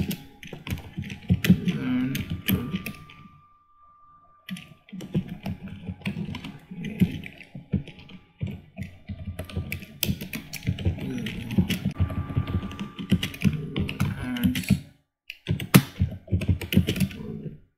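Typing on a computer keyboard in quick runs of keystrokes, with a pause of about a second roughly four seconds in and a shorter one near the end.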